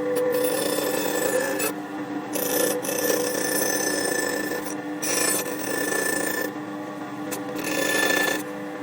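Wood being worked with an abrasive tool: a continuous rasping scrape in long strokes, broken by a few short pauses.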